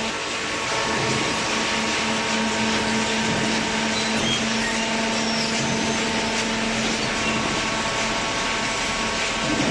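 Hydraulic cardboard baler running: a steady mechanical hum and whir with a constant low tone from its motor and hydraulic pump.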